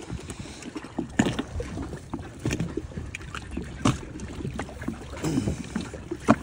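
Water sloshing and lapping against the side of a rigid inflatable boat, with scattered sharp knocks and bumps.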